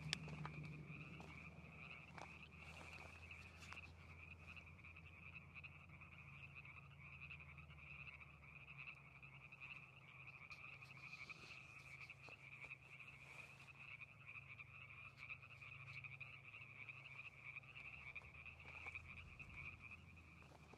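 A dense chorus of frogs calling continuously, faint, their many overlapping calls merging into one unbroken trill. A steady low hum lies underneath.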